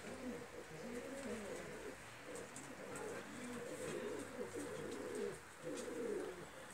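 Domestic pigeons cooing in a loft: a continuous run of low, repeated coos from several birds, overlapping one another.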